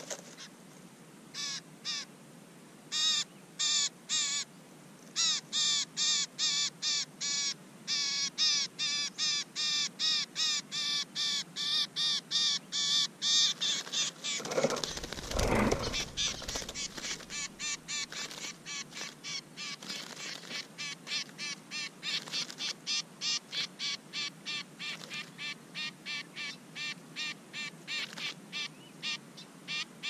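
A bird giving rapid, harsh distress calls, two to three a second, at a nest being raided by a snake. Near the middle comes a loud rustling flurry in the dry grass as a chick bursts out of the nest.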